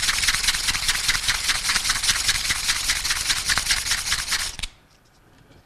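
Emery cloth rubbed rapidly back and forth around the shaft sleeve of a Bell & Gossett Series 1510 pump bearing assembly, buffing the tarnish off it. The scrubbing stops abruptly a little over four and a half seconds in.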